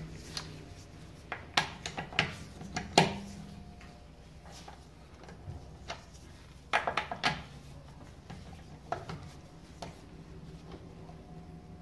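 Metallic clicks and clanks of a long-handled socket wrench on a car's wheel lug nuts as they are loosened, in two bunches, the loudest about three seconds in.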